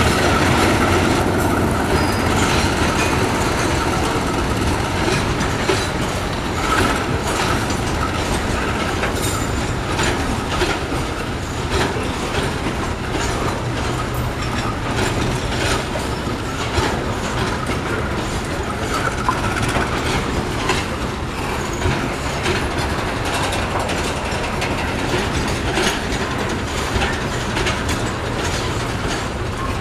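Container flat wagons of a freight train rolling past, their wheels clacking steadily over the rail joints, the CC 201 diesel locomotive's engine fading over the first few seconds as it pulls away.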